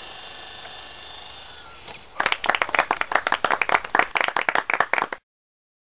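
Electric RC helicopter (Belt CP) motor and rotor whine, a steady high tone that sags and dies away about two seconds in as it spools down after landing. Then several seconds of hand clapping follow, cut off suddenly.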